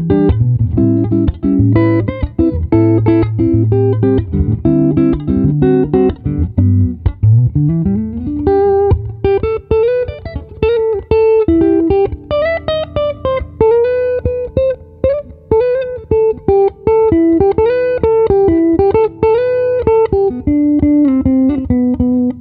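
Archtop guitar played solo: strummed chords, then a quick rising run about seven seconds in, then a single-note melody line.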